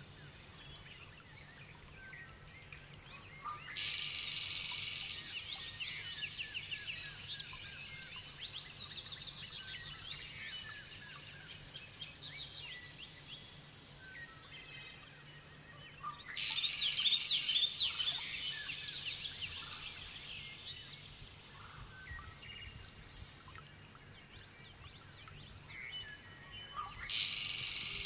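Lovebirds chirping and chattering in quick, high-pitched calls, with three louder spells of dense chatter: about four seconds in, around sixteen seconds in, and near the end.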